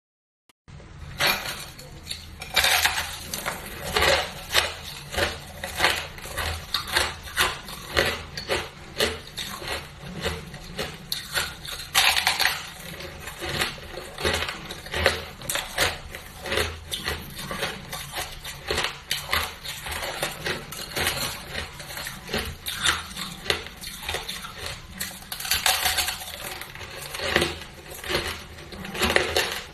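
Close, crunching bites and chewing of a fluffy chunk of frost ice ('ice flowers'), starting just under a second in: a dense run of crisp crunches, with the loudest bites about 2.5, 12 and 26 seconds in.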